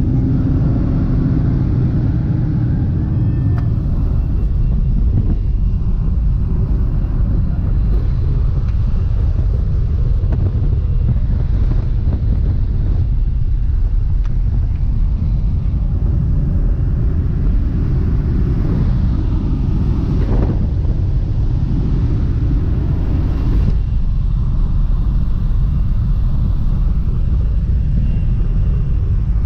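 Small jump plane's engine and propeller drone steadily, heard from inside the cabin in flight.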